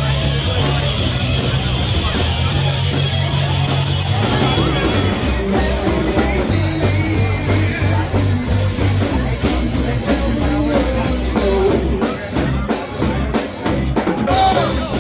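Live rock band playing: drum kit, electric guitar and bass. A fast high ticking beat drops out about four seconds in and the arrangement changes.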